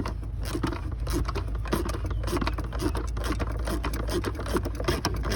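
Rapid, irregular clicking and scraping of a hand ratchet running down the last bolt of a new thermostat housing on a Dodge Avenger's 2.4-litre engine.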